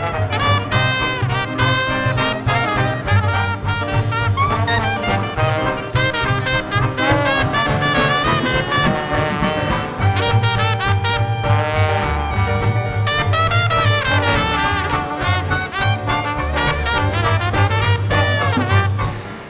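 Traditional Dixieland jazz band playing live: trumpet and trombone lead over a walking bass line, the whole ensemble stopping together near the end.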